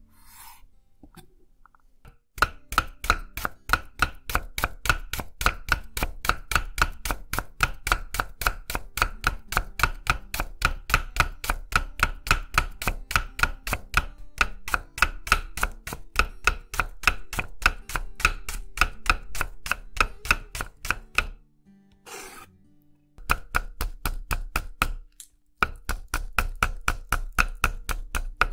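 Chef's knife finely slicing Japanese long onion on an end-grain wooden cutting board: rapid, even strokes about four a second, each a crisp cut and tap on the wood. The slicing starts about two seconds in, pauses briefly about three quarters of the way through, then resumes on green onion.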